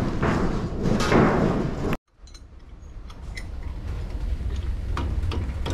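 Workshop clatter of metal parts being handled during truck brake work: knocks and clinks over a noisy rumble. About two seconds in it cuts off abruptly, then comes back as a quieter low rumble with a few light clicks.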